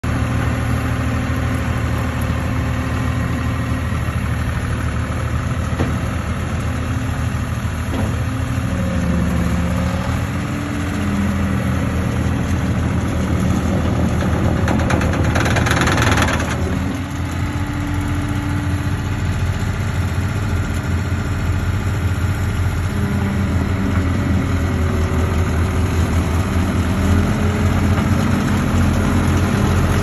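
New Holland C185 rubber-track skid steer's diesel engine running steadily, its note shifting several times as the machine is worked. About 15 seconds in, a loud rushing noise lasts a second and a half.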